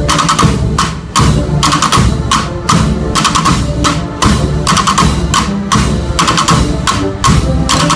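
A section of snare drums playing rolls together with sticks clacking on wooden blocks (palilleras) mounted on the drums. The strokes come in rapid rhythmic phrases broken by brief pauses.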